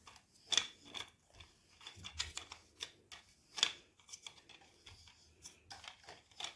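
Irregular small clicks and scrapes as a ring light mount is turned by hand onto the threaded top of a light stand.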